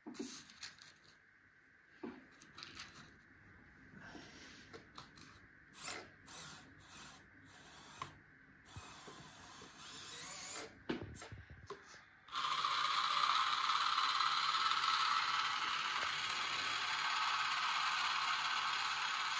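Light clicks and taps as matchboxes are handled and set on the hitch of a home-made RC model tractor; then, about twelve seconds in, the tractor's small electric motor and gears start suddenly and run with a steady whirr.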